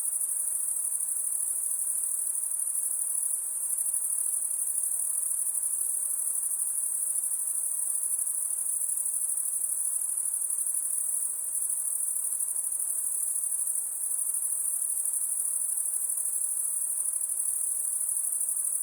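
Crickets chirping in a steady, high-pitched, unbroken chorus.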